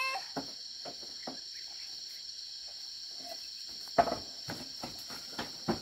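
Steady, high-pitched chorus of insects, typical of crickets at dusk. A few sharp knocks cut through it, the loudest about four seconds in and two more near the end.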